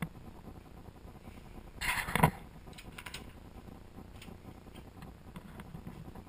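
A wooden interior door's handle and latch being worked as the door opens. A short rattle ends in a sharp click about two seconds in, and fainter clicks follow.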